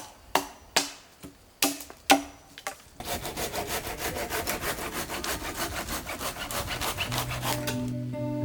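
A few sharp knocks on wood, then a hand saw cutting wood in quick, regular back-and-forth strokes. Acoustic guitar music starts near the end.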